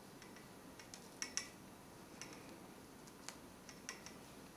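Faint, scattered light ticks and clicks as hands pull a macramé square knot tight in 3 mm cord, with a clearer pair about a second in and another a little after three seconds.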